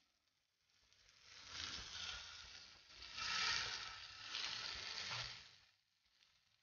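Runny vegetable mixture sizzling in hot oil as it is poured into capsicum rings in a frying pan. The sizzle swells three times and dies away near the end.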